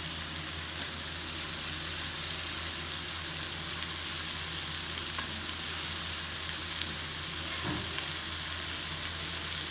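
Steady sizzle of food frying in hot oil in a pan, with a few faint clicks of a utensil.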